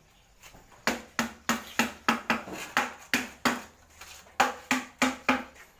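Trowels patting and tapping wet cement mortar into a floor groove: a run of sharp knocks, about three a second, starting about a second in, with a short break a little past the middle.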